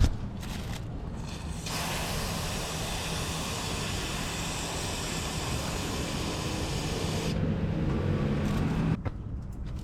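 A steady spray hiss lasting about six seconds, starting about two seconds in, over a low steady hum that cuts off suddenly near the end.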